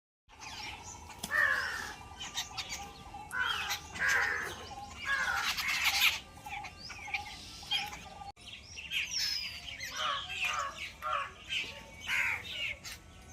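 A flock of birds chirping and calling, many short rising and falling calls overlapping in a dense chatter.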